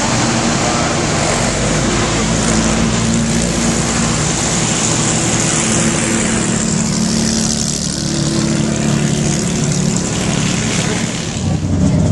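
Racing car engines running loudly and steadily.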